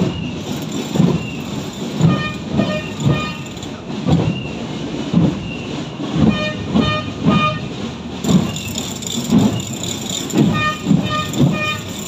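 Rhythmic drumming at a street march, about two beats a second, with short ringing bell-like tones on runs of beats.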